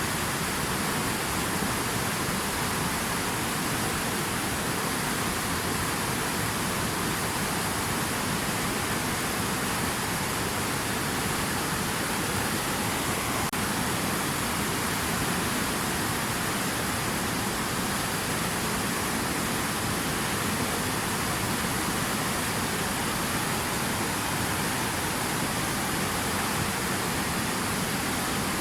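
Steady rushing water noise, even and unbroken, with no separate splashes or drops standing out.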